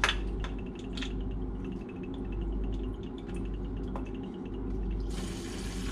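Steady low machinery hum with a few light metal clicks as the plug on a diesel fuel filter housing is loosened by hand. About five seconds in a steady hiss starts as the diesel begins to drain from the filter into the catch bottle.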